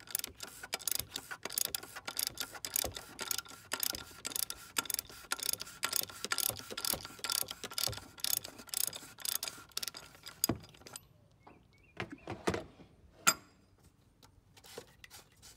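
Socket ratchet clicking rapidly as it is worked back and forth on the oil filter housing cap, loosening it. The clicking stops about ten seconds in, followed by a few separate sharp knocks.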